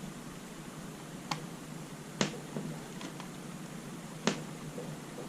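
A few short, sharp clicks and taps, about five of them and spread unevenly, from screws and a screwdriver being fitted into a laptop's plastic case during reassembly.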